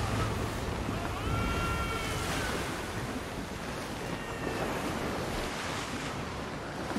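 Sea waves washing and wind, steady throughout. Two drawn-out high cries sound over them, one about a second in and another about four seconds in.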